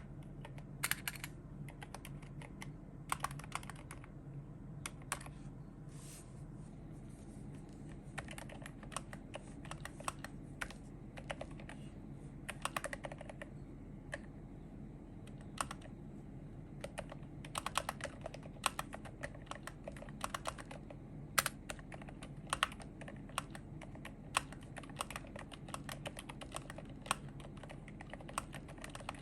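Typing on a Glorious GMMK Pro mechanical keyboard with Akko Haze Pink silent linear switches and PBT MA-profile keycaps: irregular key strokes, some in quick runs with short pauses between, over a steady low hum.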